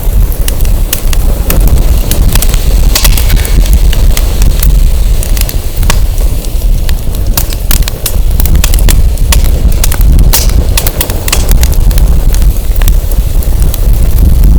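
Burning firewood crackling, with many sharp, irregular pops. Strong wind buffets the microphone, and its low rumble is the loudest sound throughout.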